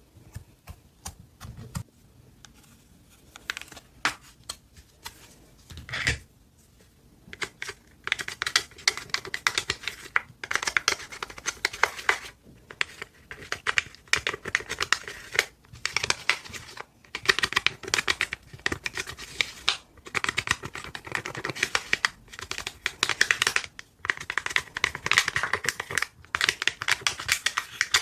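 Slime being squeezed and worked by hand, making crackling, popping clicks: a few scattered pops at first, then about eight seconds in, dense bursts of crackling a second or two long with short pauses between them.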